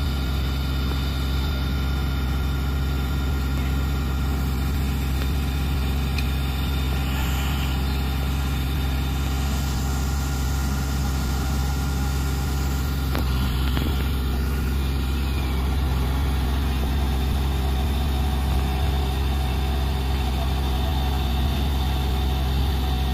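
Heavy 8x8 military truck's diesel engine idling steadily, a deep even hum that does not change in pitch or level.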